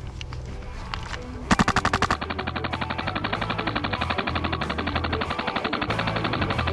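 Airsoft rifle firing: a few single shots, then from about a second and a half in, one long unbroken full-auto burst at a very fast, even rate of fire.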